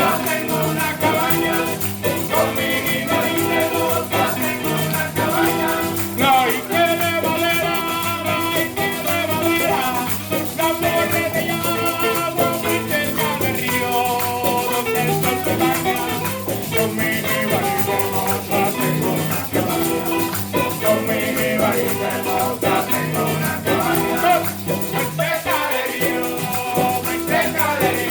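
Latin American band music playing continuously, with instruments and some singing.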